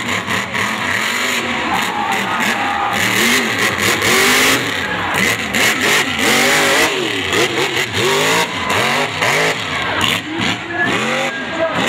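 A mud truck's engine revving hard over and over, its pitch swooping up and down in quick arcs, with a loud rush of noise about four seconds in.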